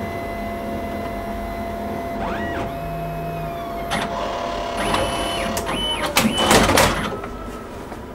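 X-ray plate scanner (computed-radiography reader) running a scan of the exposed cassette: a steady hum with several motor whines that rise, hold and fall, and the loudest mechanical rattling about six to seven seconds in, easing off near the end.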